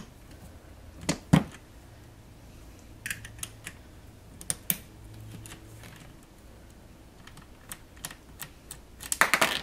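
Light clicks and taps of a Fotopro X-Go Max tripod's leg hub and its small parts being handled and worked apart by hand, with one louder knock about a second in and a quick run of clicks near the end.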